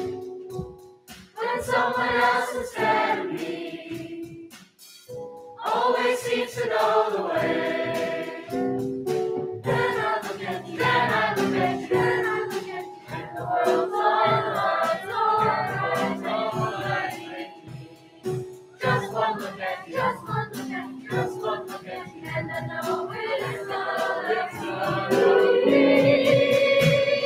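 A large choir singing together in sustained chords, with short breaks about a second in and again around five seconds in, and a louder passage near the end.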